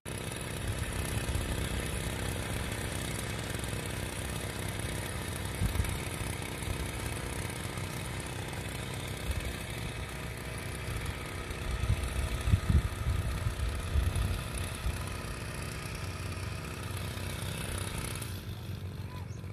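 Small two-stroke engine of a backpack power sprayer running steadily at a constant speed, with a few low rumbling bumps.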